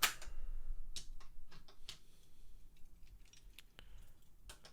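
Light clicks and taps of small die-cast toy cars and their parts being handled: a sharp click at the start, then scattered faint ticks.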